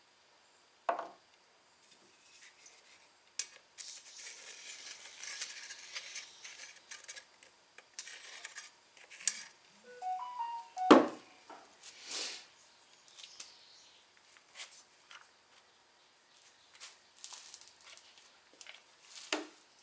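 Metal parts and hand tools clinking and knocking while working on a push mower's recoil starter, with scattered sharp knocks, the loudest about eleven seconds in, and a few seconds of hissing noise early on.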